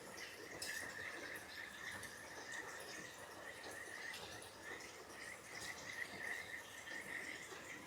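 A steady, high-pitched pulsing trill from a chorus of calling animals, with scattered faint higher chirps, over the soft rush of the river.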